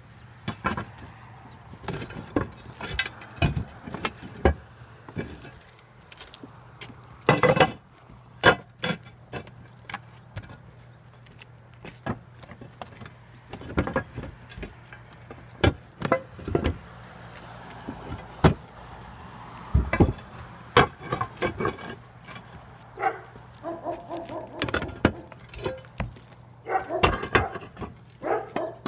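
Flat roof tiles clacking and knocking against each other as they are lifted and stacked by hand. The knocks come at irregular intervals, singly and in quick clusters, over a low steady hum.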